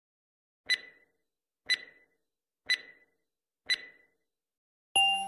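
Four short, sharp electronic ticks with a brief ring, one a second apart, from an intro countdown animation's sound effect. Intro music starts near the end.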